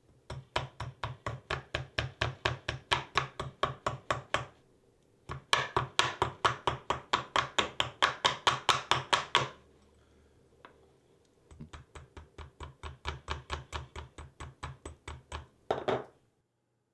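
Nylon hammer tapping a stainless steel wire mesh rack against the edge of a steel bench block, bending it into a right angle. Three runs of quick, even taps, about four or five a second, with a pause after each; the last run is softer and ends with a single tap.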